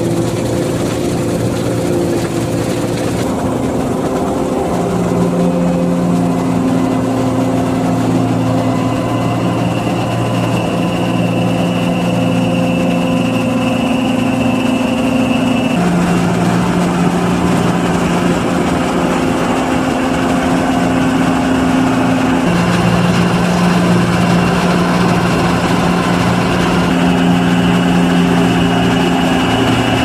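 John Deere 2066 combine harvester running steadily while harvesting wheat, its engine and machinery giving a continuous hum. The tone shifts slightly a few times.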